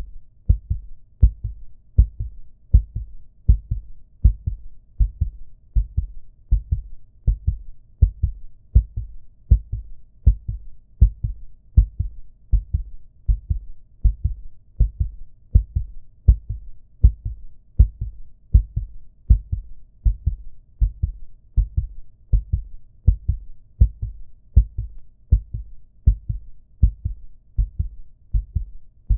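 Recorded human heartbeat sound effect: a steady lub-dub of low thuds, about one beat a second, repeating evenly.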